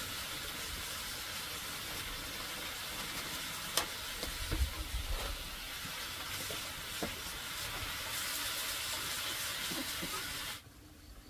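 Leafy greens sizzling in a frying pan over an open wood fire, a steady hiss with a few sharp clicks and knocks as they are stirred. The sizzle cuts off abruptly near the end.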